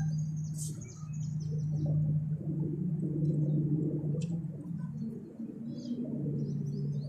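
Small birds chirping in short, quick bursts over a louder low, steady hum that drops out briefly a few times.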